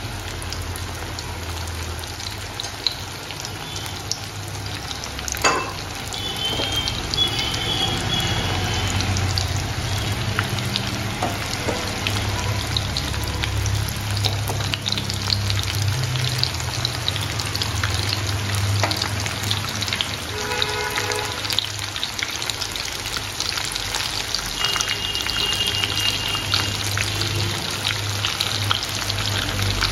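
Soya manchurian balls deep-frying in hot oil in a kadai: a steady sizzle dense with fine crackles as more coated balls go into the oil. A sharp click about five seconds in.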